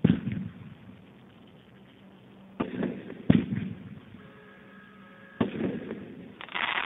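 A 16-shot 500 g consumer fireworks cake firing, with a sharp report every second or two, each trailing off in a rumble. Near the end comes a dense cluster of snaps.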